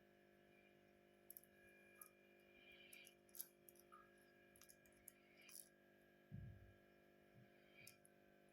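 Near silence: faint steady room hum with light scattered clicks and one soft low thump about six seconds in.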